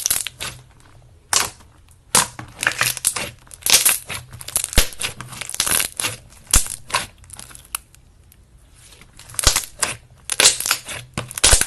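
Slime being squeezed, pressed and poked by hand, giving bursts of sharp crackling and popping with short pauses between.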